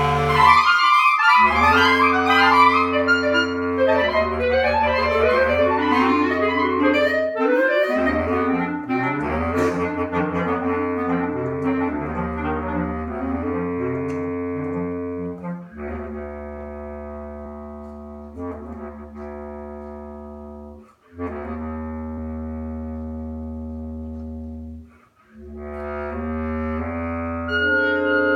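Contemporary concert music from an instrumental ensemble: quick, dense flurries of notes over a low held drone, thinning after about fifteen seconds into long sustained chords broken by brief silences.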